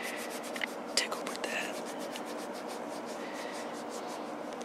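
Soft, even rubbing or scratching close to the microphone, several quick strokes a second, over a steady low hum, with a sharp click about a second in.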